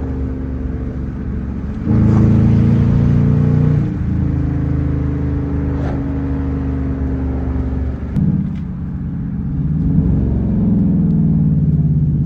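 Car engine and exhaust running loudly, the engine note stepping up and down several times: louder from about two seconds in, dropping near the middle, then climbing again near the end.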